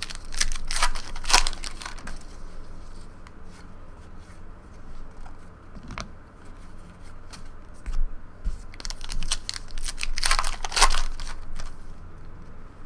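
Foil trading-card pack wrappers being torn open and crinkled, in two spells of noisy crackling: one at the start and a longer one about nine to eleven seconds in, with quieter handling between.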